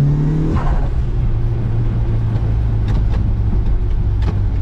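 Mitsubishi Lancer Evo 5's turbocharged four-cylinder engine pulling hard from inside the cabin, its note climbing and then dropping about half a second in, followed by steady engine and road noise as the car drives on.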